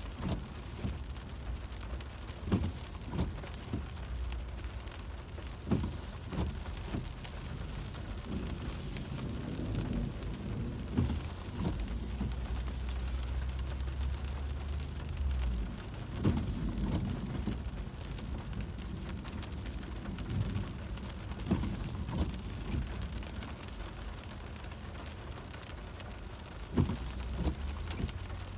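Heavy rain falling on a car's roof and windshield, heard from inside the cabin, with scattered louder drop hits. A low rumble runs underneath for several seconds in the middle and stops abruptly.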